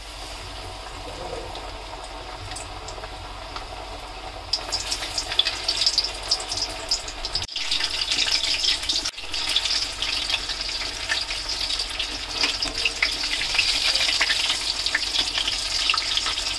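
Coated chicken pieces deep-frying in hot oil in a steel kadai: a dense crackling sizzle, lighter at first and louder and busier from about four and a half seconds in.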